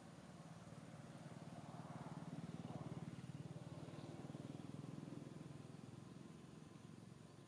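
A faint engine hum, getting louder to about three seconds in and then fading, as of a motor vehicle passing at a distance.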